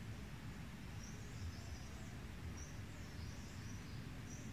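Quiet outdoor ambience: a steady low rumble of background noise, with small birds giving short, high chirps several times.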